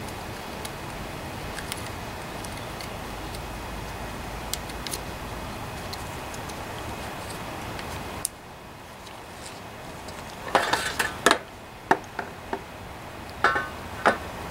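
A string of sharp clicks and taps, hard plastic and metal knocking together, as a metal pick is worked in a plastic recoil-starter handle. Before them there is only a steady faint hiss.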